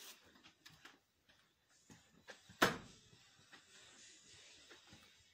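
Faint footsteps and small knocks of someone walking through indoor rooms and doorways, with one sharp, louder knock about two and a half seconds in.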